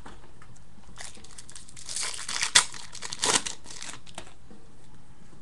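Wrapper of a baseball card pack being torn open and crinkled, with a sharp crackle about two and a half seconds in and another burst just after.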